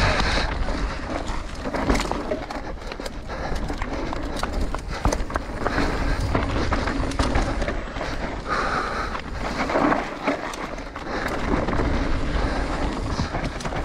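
Mountain bike ridden fast down a dry dirt and stone trail: knobby tyres rolling over the ground, wind on the microphone, and many quick clattering knocks from the bike over bumps.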